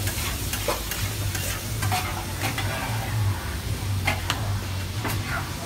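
Food sizzling on a hot flat-top griddle, with scattered clicks and taps of metal utensils and a low hum underneath.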